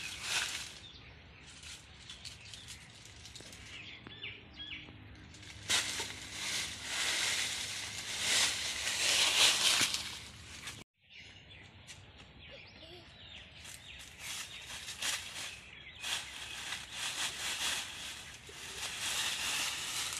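Dry fallen leaves crunching and rustling in bursts under a small child's hands and feet as he crawls and stands in a leaf pile. The loudest bursts come in the middle and near the end, with a sudden brief cut-out about halfway. Birds chirp faintly in the background.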